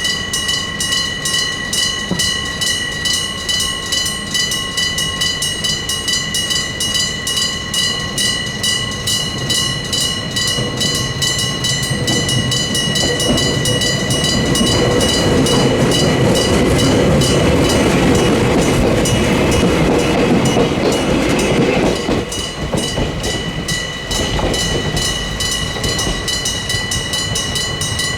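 Level-crossing electric gong (電鈴) ringing, a real bell struck by a hammer in rapid, even strokes. Partway through, a train passes, its running noise swelling from about ten seconds in and fading near the twenty-two second mark.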